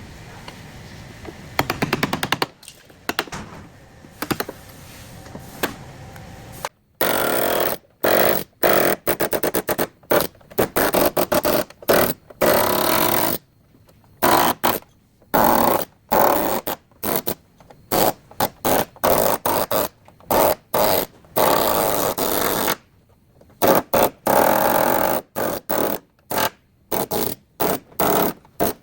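A power tool on car body panels, run in many short bursts that start and stop abruptly, after a steadier stretch of rapid buzzing at the start.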